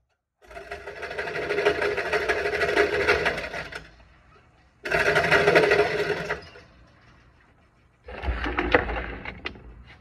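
Glock pistol fired at an indoor range, picked up by an overloaded phone microphone as three stretches of harsh, rapid crackling noise: the first about half a second in, then sudden ones at about five and eight seconds.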